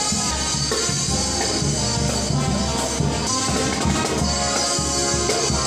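Background music with drums and percussion and a steady beat.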